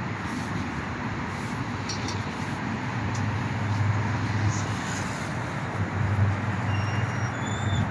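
Steady road traffic noise from a busy multi-lane city street, with a low engine rumble swelling between about three and seven seconds in as a heavy vehicle passes. A few faint short high chirps near the end.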